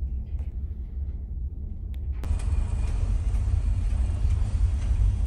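Steady low rumble of a ferry's engines and machinery. About two seconds in, a louder, hissy background cuts in abruptly over the rumble.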